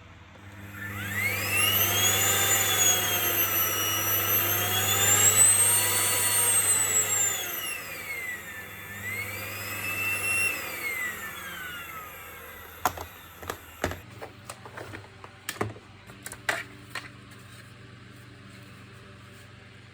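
A small electric motor whines for about ten seconds, its pitch swinging up and down as it speeds up and slows, then dies away. A run of sharp clicks and knocks follows, like plastic parts being handled.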